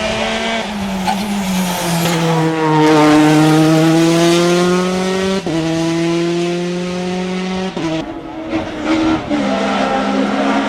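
Rally car engine running at high revs, its note falling as the car goes by, with abrupt breaks in the note at gear changes about five and a half and eight seconds in.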